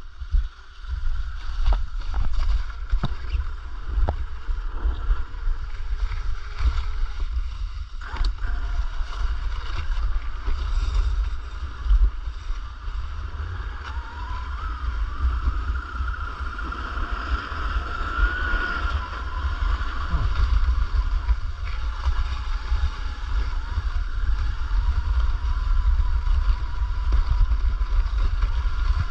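Large-scale electric RC car running on a snowy trail: the brushless motor's whine rises and falls with the throttle over a heavy low rumble.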